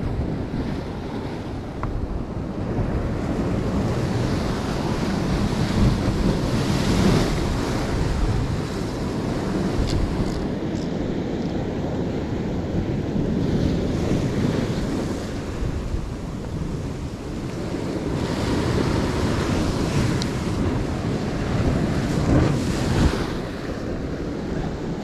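Sea surf breaking and washing on the shore, with wind buffeting the microphone; the rush of the waves swells and eases every few seconds.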